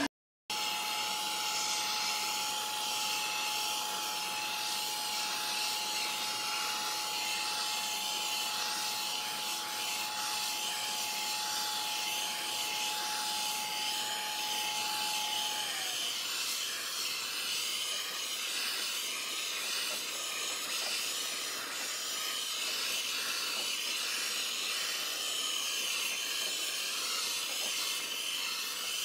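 Handheld MAP gas blowtorch flame hissing steadily while it scorches the surface of a wooden bowl. A thin steady whistle runs alongside it until about halfway through.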